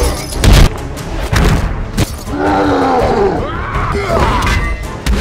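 Heavy impacts and booms of a film fight: the loudest hit lands about half a second in, with more near one and two seconds, under film score music. In the middle comes a long wavering voice-like groan.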